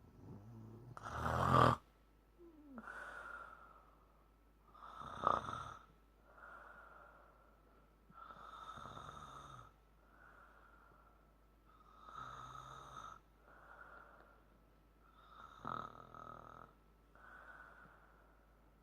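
A woman snoring heavily in her sleep. There are five louder snores about every three and a half seconds, with softer breaths between them; the first, about a second in, is the loudest.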